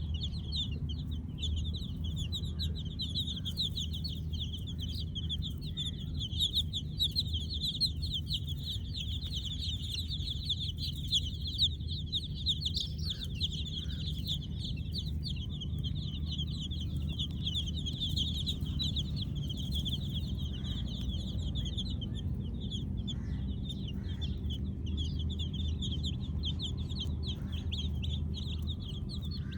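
A group of baby chicks chirping continuously, many short high peeps overlapping, over a steady low hum.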